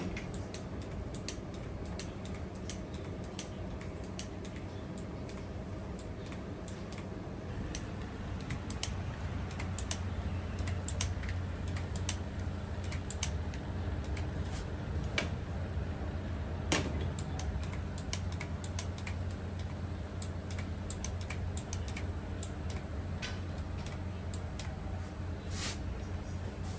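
Irregular sharp metallic clicks and taps as a hand-held stainless steel batter dispenser is worked over cast-iron taiyaki molds, filling them with batter, over a steady low hum.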